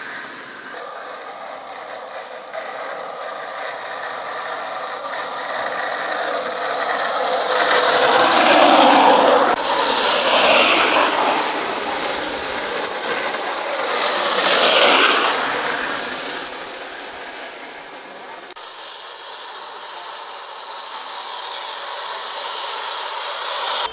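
Wooden soapbox carts rolling fast down asphalt on hard bearing wheels, a harsh grinding rattle with no engine note. It swells and fades twice as carts pass, then builds again as another approaches near the end.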